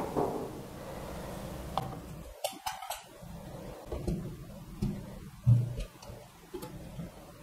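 Light clicks and knocks as a bare circuit board is handled and set into a plastic PCB holder clamp, with a dull thump about five and a half seconds in.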